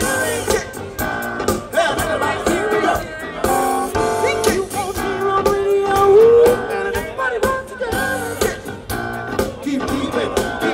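Live band playing a song: a lead vocal over guitar and drums, with one long held sung note about halfway through.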